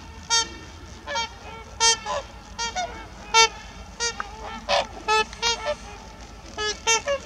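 Trumpeter swans calling in flight: a run of about fifteen short calls from several birds, spaced unevenly, some in quick pairs.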